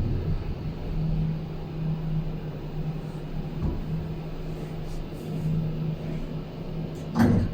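Steady low mechanical hum, with a short louder sound near the end that rises in pitch.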